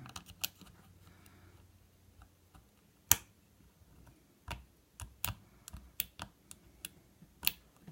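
Small, sharp, irregular clicks of a lock pick working the pin tumblers in the core of a cheap, rusty bike lock. The loudest clicks come about three seconds in and near the end.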